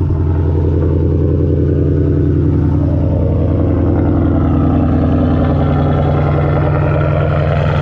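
Straight-piped 2018 Ford Mustang GT 5.0 V8 idling steadily and loudly just after a cold start. It is heard first from inside the cabin, then up close at the tailpipes.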